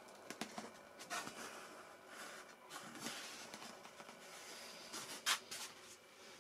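Faint handling noise of a foam model-aircraft wing being turned over in the hands: a few soft taps and rustles, with a louder brief brushing scrape about five seconds in.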